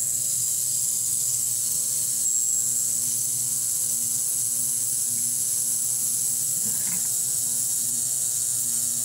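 Crest ultrasonic cleaner running a rinse cycle: a steady electrical buzz under a high, even hiss as the transducers cavitate the distilled water in the glass beakers set in its tank.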